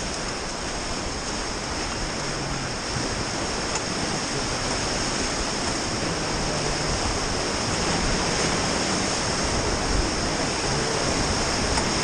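Whitewater rapids rushing steadily around an inflatable raft, growing a little louder toward the end.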